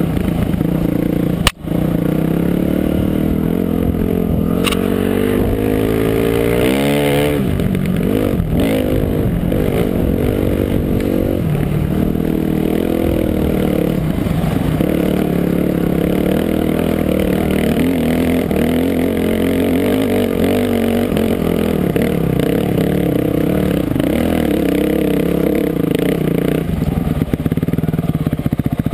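Dirt bike engine running under load on a rough trail, its revs rising and falling with the throttle and climbing steeply about seven seconds in. A sharp knock about a second and a half in.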